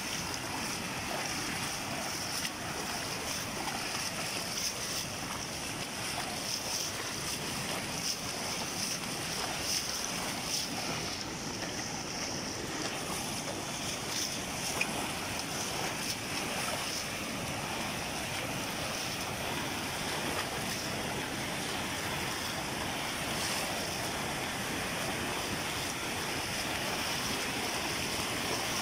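Muddy floodwater rushing across a road and over a bank in a strong current: a steady, unbroken rush of water.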